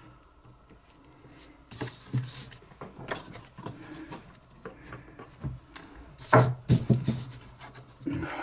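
Irregular small clicks, taps and scrapes of a hand tool on the metal of a butane lighter's filler valve as its tabs are bent over, with a louder run of clicks about six seconds in.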